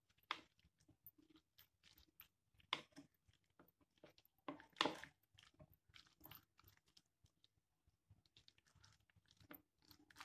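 Faint, irregular scraping and tapping of a spoon stirring shredded chicken and mayonnaise sauce in a plastic bowl, the food squishing in between; a few strokes are louder, about a quarter second, three seconds and five seconds in.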